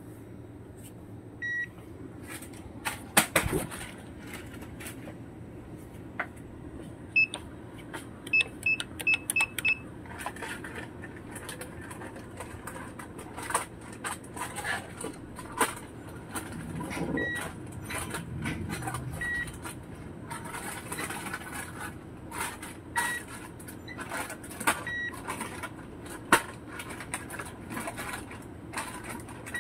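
Short electronic beeps, like a keypad or till: a quick run of about six between seven and ten seconds in, and single beeps every few seconds after. Frequent sharp clicks and knocks sound over a steady low hum.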